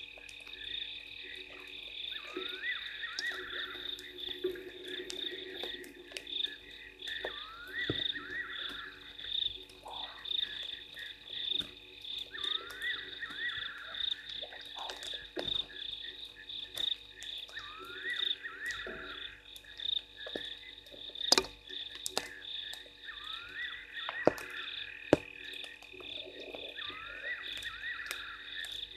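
Frog chorus at a waterhole at night: a steady, fast-pulsing high trill with a lower call repeating about every two and a half seconds, and scattered sharp ticks throughout.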